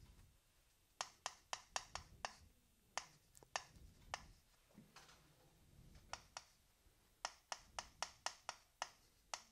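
Chalk tapping and scraping on a blackboard as characters are written: runs of short, sharp taps with gaps of about a second between them.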